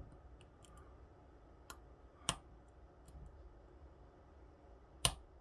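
Small metallic ticks of a lock pick working the pin stack of an Assa Twin 6000 euro cylinder, with two sharp clicks, one about two seconds in and one near the end.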